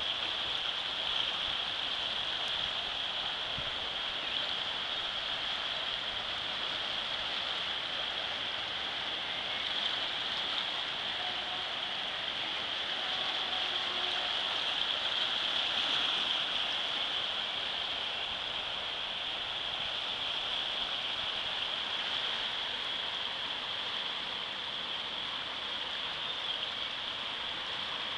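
Floodwater of the swollen Biała river rushing past as a steady, unbroken hiss.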